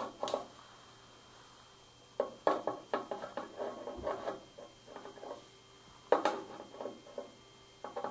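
Small knocks, taps and rattles of equipment being handled, coming in irregular clusters with short quiet gaps between them.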